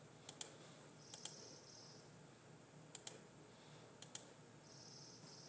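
Faint computer mouse clicks: four quick double clicks at irregular intervals, over low room hiss.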